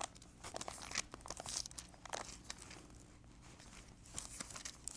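Thin Bible pages being leafed through by hand: a run of short paper rustles and crinkles, some louder than others, over a faint steady room hum.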